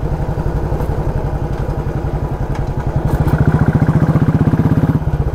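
Motorcycle engine running under way with a fast, even exhaust pulse. It gets louder about three seconds in, with a brief dip near the end.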